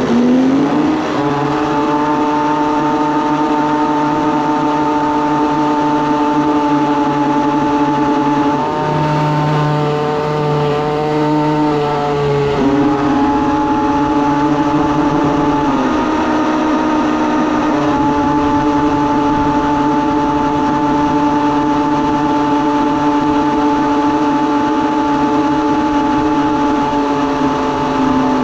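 Motor of a radio-controlled toy boat running at speed, heard from on board as a steady whine whose pitch shifts a few times, over the hiss of spray thrown up behind the hull.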